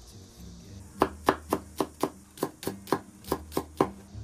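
Chinese cleaver chopping a Chinese leek into fine pieces on a bamboo cutting board. It is a quick run of about a dozen sharp knife strikes on the wood, roughly four a second, starting about a second in.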